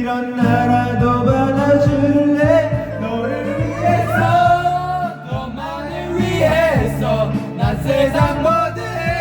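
Karaoke backing track playing with a voice singing along over it.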